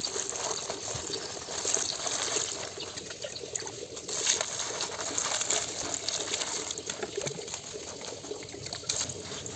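Water running and splashing as crushed bitter eggplant is rinsed in a basket, with an uneven, rushing sound.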